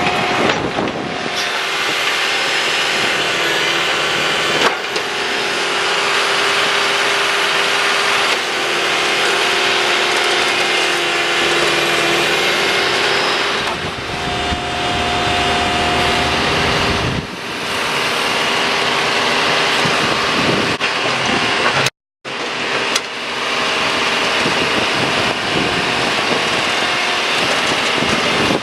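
A backhoe working: its engine runs steadily under a loud, noisy clatter, with a steady whine that comes and goes.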